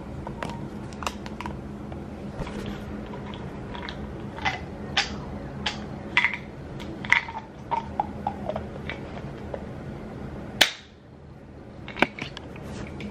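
Objects being handled and moved about: scattered clicks and light knocks over a steady low hum, with one sharp, louder knock near the end.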